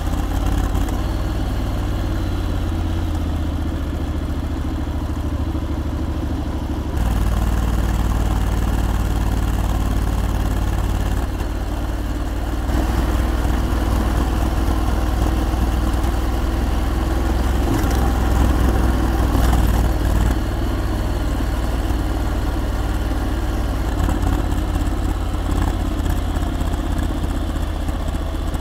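Honda X-ADV motorcycle being ridden: engine running under a deep rumble of road and wind noise. It gets louder about 7 seconds in, eases off, then swells again for several seconds from about 13 seconds in.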